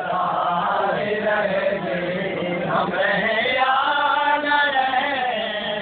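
Voices chanting a Shia Muharram mourning lament (noha) in long held lines that bend in pitch.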